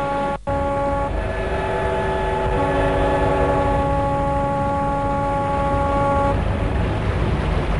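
Ships' horns sounding: several long steady blasts at different pitches overlapping, broken by a very short dropout just under half a second in. The horns stop about six seconds in, leaving a low rumble.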